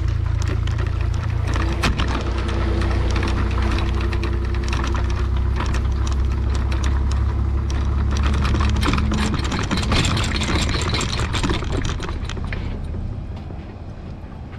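Light metal boat trailer rattling and clattering as it rolls over rough concrete, over a steady low engine idle that fades near the end.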